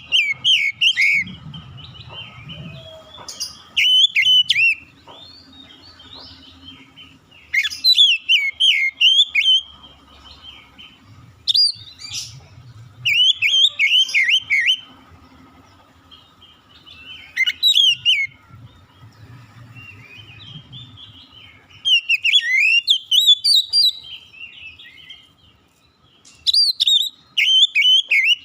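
Oriental magpie-robin (kacer) singing: bursts of rapid, varied whistled notes that slide up and down, repeated every few seconds with short pauses between.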